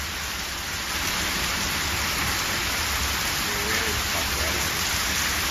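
Heavy rain pouring onto a flooded paved yard and splashing into standing water, a dense steady hiss that grows a little louder about a second in.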